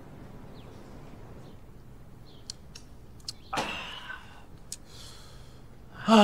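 Men drinking from cans: a few light clicks, a short breathy vocal 'ah' a little past the middle, then a loud sigh falling in pitch at the very end.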